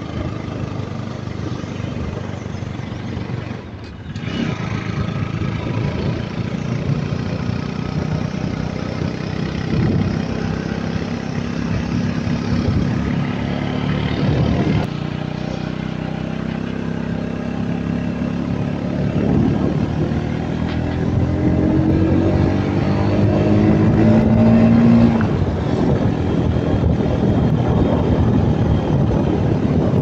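Motorcycle engine running under way, carrying a rider and passenger up a winding hill road. Its pitch climbs as it accelerates from a little past two-thirds through, then drops back near the end.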